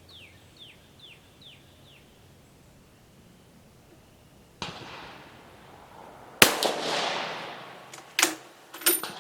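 A single rifle shot from an Italian Vetterli 1870/87/15 (6.5 mm Carcano conversion) fired with a light cast-bullet load, about six seconds in, its report ringing out and dying away over a second or two. Two sharp metallic clicks follow near the end as the action is worked, and a few faint short falling chirps are heard at the start.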